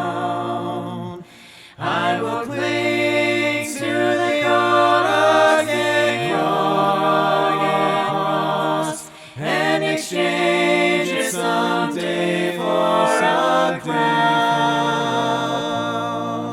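A cappella hymn singing by several voices in harmony, with no instruments, broken by short pauses for breath between phrases.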